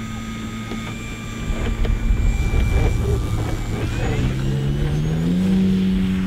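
Electric motor and propeller of a large-scale RC DHC-2 Beaver model running at takeoff power as it rolls across grass; the pitch rises about four seconds in as the plane speeds up and lifts off. Gusty wind rumbles on the microphone.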